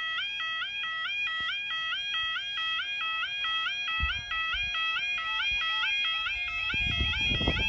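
British level crossing yodel alarm sounding as the crossing's warning lights come on: a two-tone electronic warble swapping between two pitches about twice a second, warning that a train is approaching and the barriers are about to lower. Low buffeting noise joins about four seconds in and grows louder near the end.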